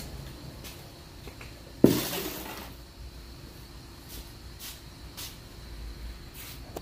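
Two-post car lift being released to lower the vehicle: about two seconds in, a sudden thud followed by a burst of hiss that dies away within a second, then a few faint clicks.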